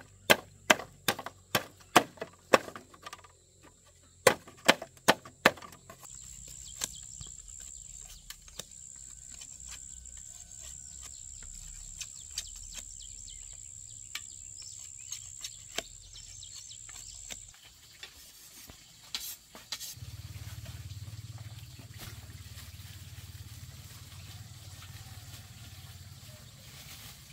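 A blade chopping into wood with sharp, even strikes, about two to three a second, then a pause and a short second run. Scattered light knocks follow, with a steady high-pitched whine for some seconds and later a low hum.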